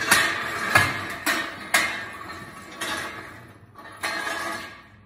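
Steel engine-stand parts clanking as they are handled: about six sharp metal knocks over the first four seconds, each ringing briefly.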